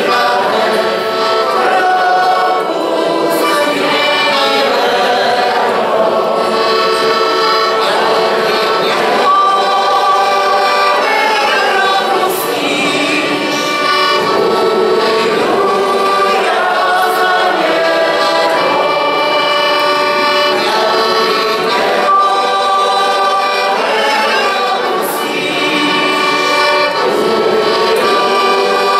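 Piano accordion playing a Moravian folk-song tune, the melody moving over held reed chords.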